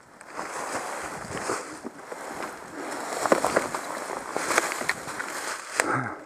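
Enduro motorcycle rolling down a steep forest slope, its tyres crunching and sliding through dry leaves, with scattered knocks and rattles from the bike on the rough ground.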